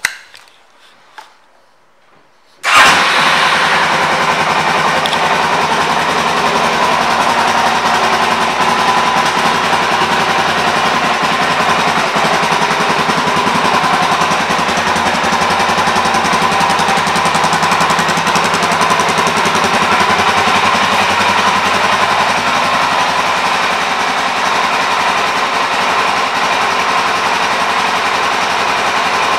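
After a few faint clicks, a 2022 Suzuki DR-Z400SM's 398 cc single-cylinder four-stroke engine starts suddenly about three seconds in. It then runs at a steady idle.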